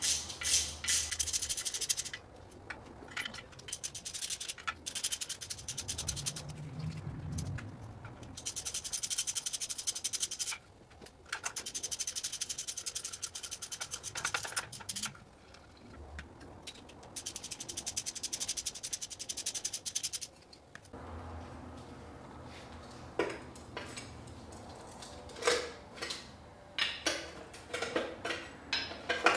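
Hand ratchet with a deep 10 mm socket backing out valve cover bolts, its pawl clicking rapidly in several runs of a few seconds each. Near the end come separate metallic clinks of bolts and tools being handled.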